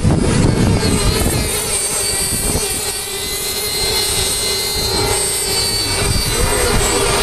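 Small 3.5 cc two-stroke glow engines of FSR-V radio-controlled racing boats running flat out on the water, a steady high whine.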